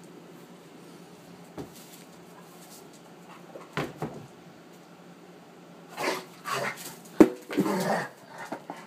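Wolf hybrid and Alaskan Malamute at play: mostly quiet at first with a single knock, then a burst of scuffling and short dog vocal sounds over the last three seconds, with a sharp click in the middle of it.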